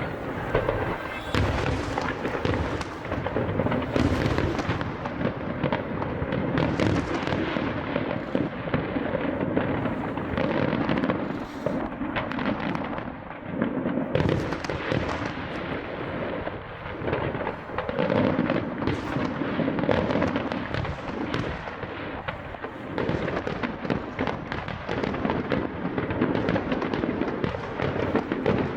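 Fireworks show: aerial shells bursting in a dense, unbroken barrage of bangs and crackle.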